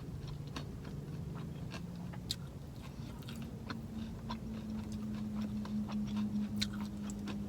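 Close-miked chewing of crispy breaded boneless chicken wings: crunching and wet mouth clicks. A steady low hum joins about three seconds in.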